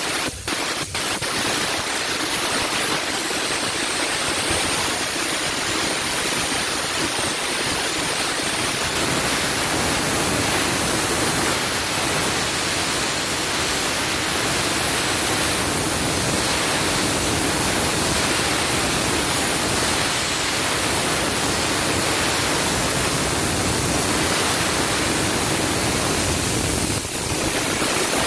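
Steam car-wash wand spraying onto a car's bodywork: a steady, loud hiss that cuts out briefly twice near the start.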